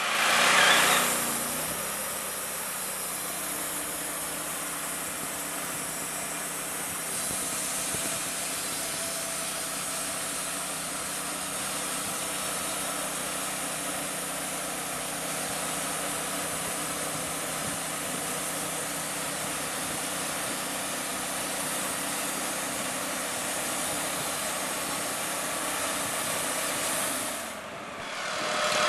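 Engine of a portable band sawmill running steadily, coming in abruptly with a louder surge in the first second. It dips briefly near the end, then picks up again.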